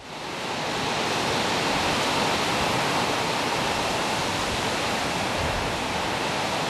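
Steady rushing noise of a strong storm wind, fading in over the first second and then holding even.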